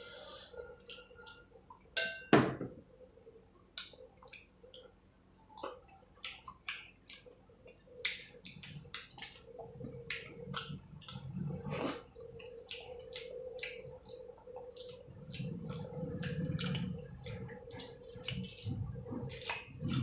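Close-up eating sounds: a steady run of wet smacking and chewing clicks, with one loud clink of a plate or bowl about two seconds in. A faint steady hum runs underneath.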